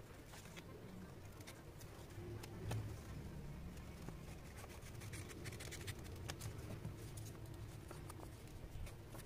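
Paper being handled on a desk: faint rustling and scraping with scattered light taps and clicks, over a low hum.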